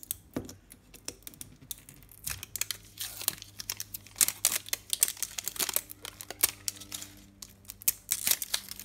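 Thin plastic shrink-wrap being picked at and peeled off a Mini Brands capsule ball by fingers: irregular crinkling and tearing with quick runs of sharp crackles and clicks, busiest in the middle and again near the end.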